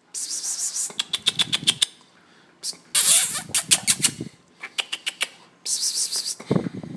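Bengal kittens eating minced meat from bowls: wet chewing and smacking, with quick clicks coming in bursts of about a second, separated by short pauses.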